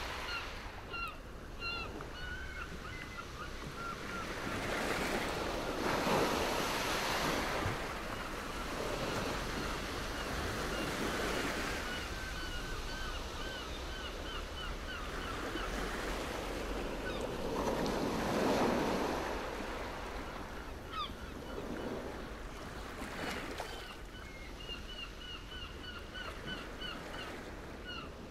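Small waves washing onto a stony sea shore, swelling louder a few times, with some wind on the microphone. Over it a bird calls in long runs of quick, repeated chirps.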